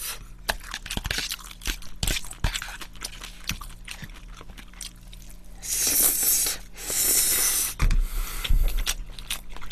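Wet chewing with small clicks of a metal fork on a plastic bowl, then two long, loud slurps of pasta noodles about six and seven seconds in.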